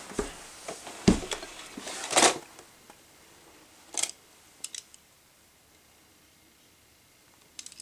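Clear plastic storage drawers and small die-cast toy cars being handled: a handful of sharp clacks and one short scrape, mostly in the first half, with a few light clicks around four to five seconds in.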